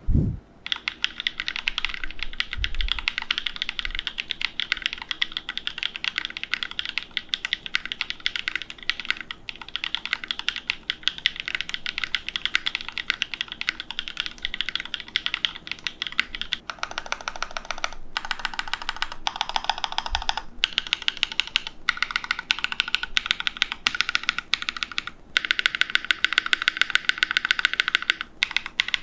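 Typing test on a custom 60% mechanical keyboard with lubed Durock POM Piano linear switches, an aluminium Tofu60 case and plate with foam dampening, and GMK keycaps. A dense, continuous run of keystrokes, broken by a few short pauses.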